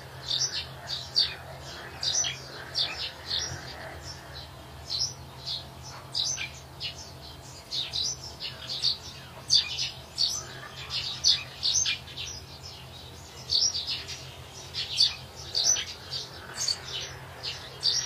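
A flock of young chicks peeping, a continuous overlapping chorus of short, high cheeps, several a second.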